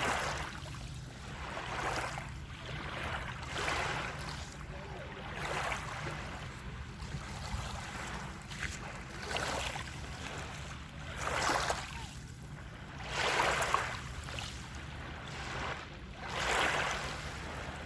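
Water waves splashing and washing in repeated surges, one every one to two seconds, the loudest about thirteen seconds in, over a steady low hum.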